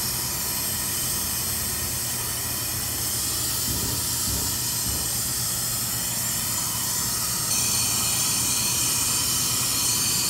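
Handheld laser cleaning system running with its laser not yet firing: a steady hiss with several high whines, the whines shifting in pitch about three-quarters of the way through.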